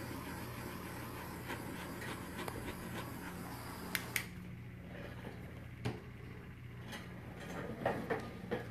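A handheld torch hissing over fresh epoxy, shut off about four seconds in with two sharp clicks. Under it, the small motor of an epoxy tumbler turner hums steadily, and there are a few light knocks near the end.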